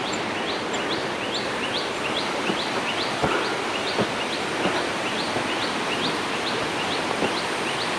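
A small animal calling in a steady, even string of short rising chirps, about three a second, over a constant rushing hiss of outdoor background noise. A few soft thumps come through now and then.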